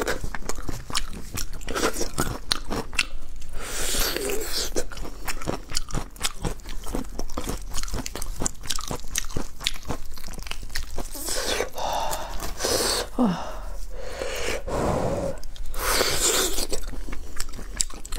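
Close-miked eating of braised pig's trotter: chewing and mouth smacks in a dense run of small clicks, with the sticky meat being pulled apart by gloved hands and a few louder swishes.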